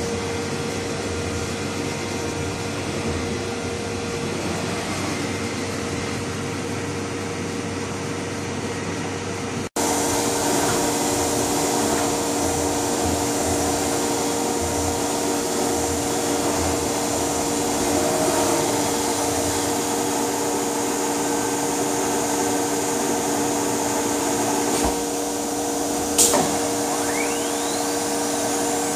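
Castaly PRO 510 CNC router running, its spindle motor giving a steady whine over a noisy rush. A sudden break about ten seconds in brings in a second, lower steady tone. Near the end there is a sharp click, then a faint rising whistle.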